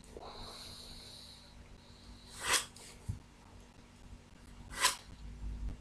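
A graphite pencil scratches a line along a plastic set square on drawing paper for the first second and a half or so. Two short sharp swishes follow, about halfway through and near the end.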